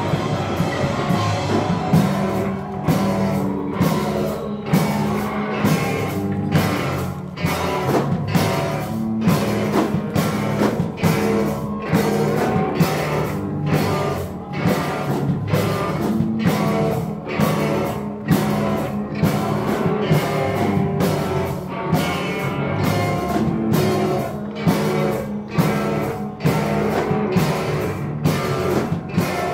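Live rock band playing with guitar and drum kit. Sustained low notes run throughout, and the drums come in about two seconds in, hitting a steady beat of about one and a half strikes a second.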